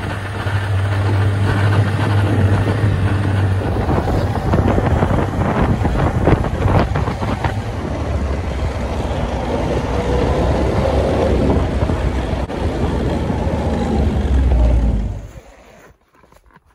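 Snowmobile engine running at speed across open snow, with wind buffeting the microphone. The sound drops away about fifteen seconds in.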